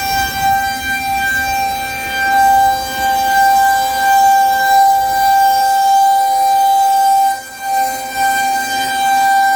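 Federal Signal 2001-130 electromechanical outdoor warning siren sounding its steady alert signal during a monthly full test: one held, unwavering pitch whose loudness swells and dips, with a brief dip about three quarters of the way through.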